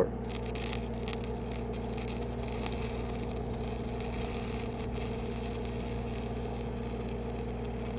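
Stick-welding arc from a 1/8-inch 6010 rod crackling steadily as it runs a bead on steel plate, starting right at the beginning, over the constant drone of an engine-driven SAE 300 welding machine.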